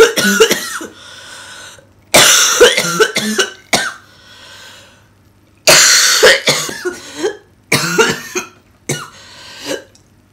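A woman coughing hard with flu, in about five fits of several rapid coughs each, drawing breath between the fits.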